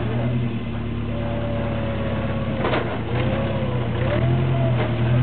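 Toyota pickup rock crawler's engine running under load as it crawls up over boulders, revving up near the end, with a few short knocks about halfway through.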